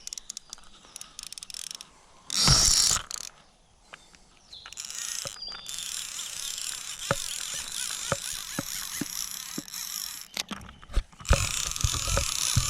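Fishing reel being cranked to retrieve a cast lure, with a light ticking about two times a second under a steady whirring. A brief loud rustle comes about two seconds in, and rough handling noise with thumps near the end.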